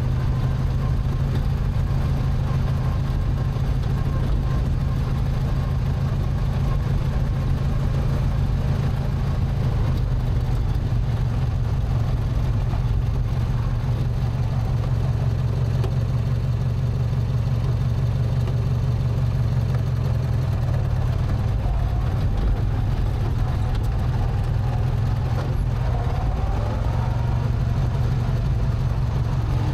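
Racing lawn mower's Briggs & Stratton twin-cylinder engine running steadily while the mower drives along, a loud, even low drone.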